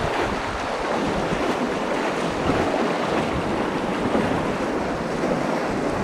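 Steady rushing of river current around a drifting raft, with wind noise on the microphone.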